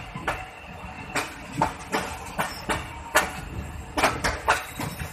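Passenger coach wheels running over the track, heard from the coach window: a low rumble with sharp, uneven clacks, two or three a second, as the wheels cross rail joints and points.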